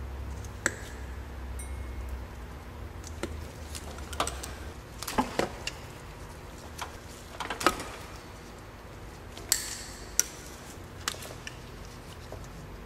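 Wire cutters and strippers clicking and snipping at a wiring-harness wire: scattered sharp clicks and snaps with handling rustle between them, while a melted section of the coolant temperature sensor wire is cut out and shortened for repair.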